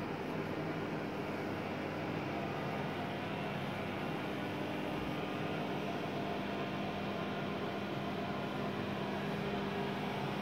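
Prevost 35 mm cinema projector running: a steady mechanical hum and whir with several steady tones.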